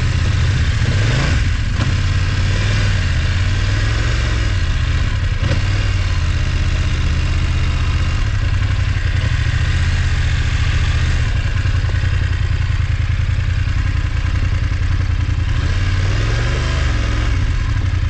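BMW F850GS Adventure's parallel-twin engine running at low revs on a dirt track, its pitch rising and falling with the throttle a few times, once more near the end.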